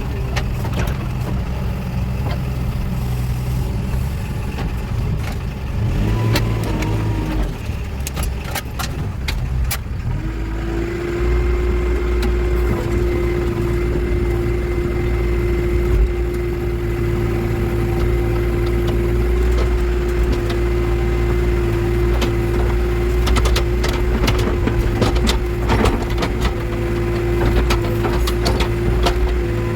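Backhoe loader's diesel engine running while it works, with a steady whine setting in about ten seconds in and scattered knocks and clatter.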